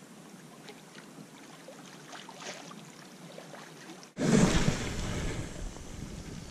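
Small lake waves lapping and trickling among shoreline rocks, with faint ticks. About four seconds in, the sound cuts abruptly to a loud rush of wind on the microphone that eases off.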